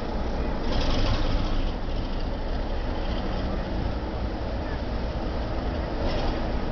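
Class 33 diesel locomotive's Sulzer eight-cylinder engine running steadily as the loco moves slowly past, with a short hiss about a second in.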